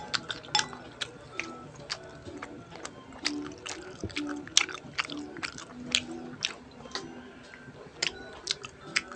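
Close-miked chewing with sharp, irregular wet mouth clicks and smacks, over quiet background music playing a simple repeating melody.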